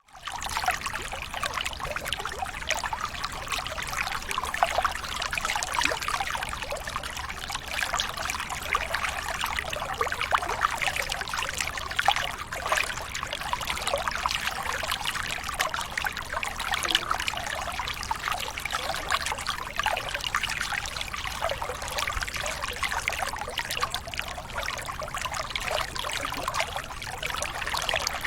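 Running water trickling and splashing steadily, a dense even patter of small splashes.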